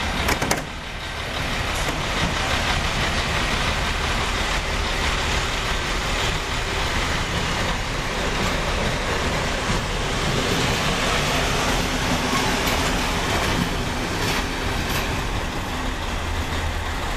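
ČD class 742 diesel-electric locomotive running steadily as it moves slowly through the station, a continuous diesel engine sound with a low hum underneath. There is a short sharper noise right at the start.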